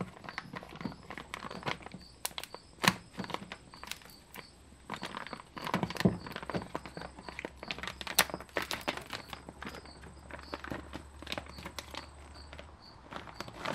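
Plastic door moisture barrier being peeled off its sticky sealant on a car door's inner panel: irregular crinkling, crackling and small clicks as the sheet pulls away.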